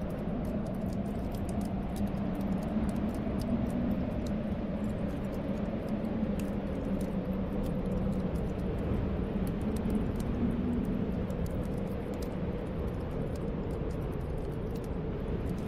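Storm wind blowing steadily with a low, wavering moan, over a wood fire crackling with frequent small pops.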